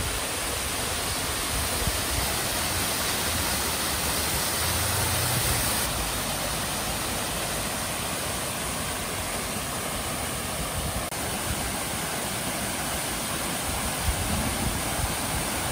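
Water falling down a landscaped rock waterfall and splashing into its pool: a steady, unbroken noise of falling water.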